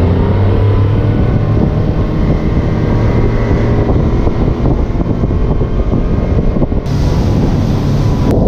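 Honda 135 hp four-stroke outboard engine running at speed, its pitch climbing in the first second and then holding steady, over the rush of water from the wake. Near the end, wind rushing over the microphone comes in.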